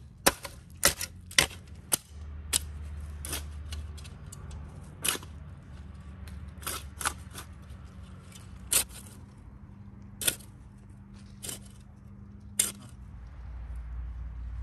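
Steel spade digging into dry, clumpy garden soil: a string of sharp, irregular crunches and clicks, several close together in the first two seconds and then about one a second.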